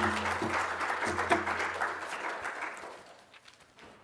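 Audience applauding, fading out about three seconds in.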